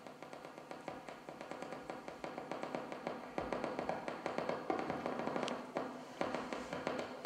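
Soprano saxophone played as percussion in free improvisation: rapid, irregular key clicks and taps, about five or six a second, over a faint sustained tone. It starts suddenly and grows gradually louder.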